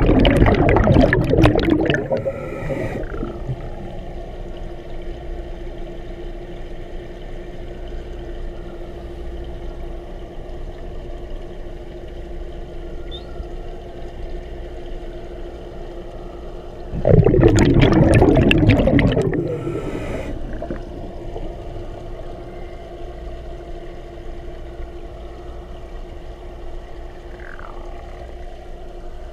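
Scuba diver's exhaled bubbles rushing out of the regulator, heard underwater through the camera housing. There are two exhalations, one at the start and one about 17 seconds in, each lasting two to three seconds, over a steady underwater hum with a constant low tone.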